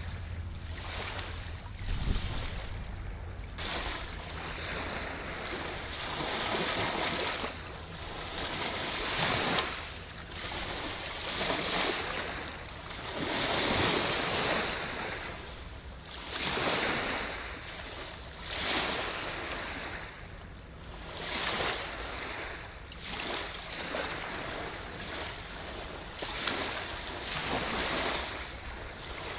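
Water washing against the riverbank in repeated surges, one every two to three seconds, each swelling and falling away, over a low steady rumble.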